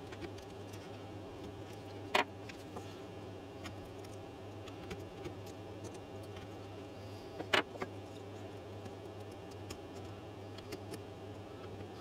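Mini carving chisel cutting into a small wood block: scattered light clicks and ticks as the blade bites and chips come away, with two sharper clicks about two and seven and a half seconds in. A steady low hum sits underneath.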